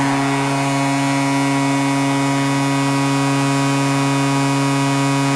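Hockey arena goal horn blowing one long, unbroken, low steady blast.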